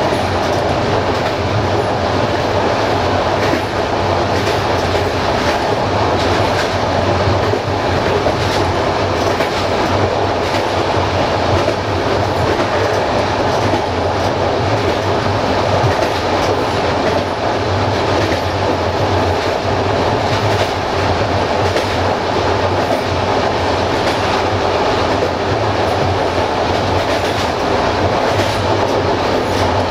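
Passenger train running steadily along the track: a constant rolling rumble with frequent clicks of the wheels passing over rail joints.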